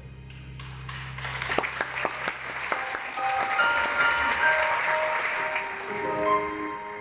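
Concert audience applauding, swelling about a second in and dying away near the end, over soft sustained music from the stage.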